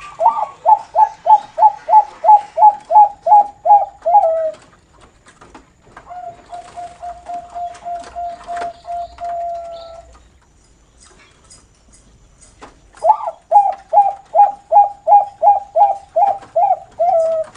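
Zebra dove (perkutut) of Bangkok stock singing two runs of about a dozen quick, evenly spaced cooing notes, sliding lower toward the end of each run. This is the call type fanciers call 'noklak'. Between the runs a quieter steady tone is held for about four seconds.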